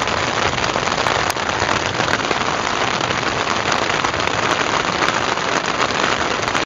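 Heavy rain falling on a tent, heard from inside as a steady, dense hiss of drops on the fabric. It cuts off suddenly at the end.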